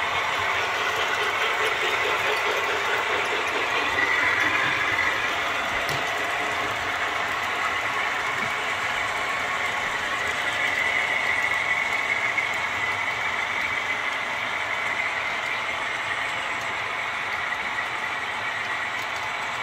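Model trains running on a layout: a steady whir of small locomotive motors and gears, with wheels rolling on the track. A whine in it swells about four seconds in and again around eleven seconds.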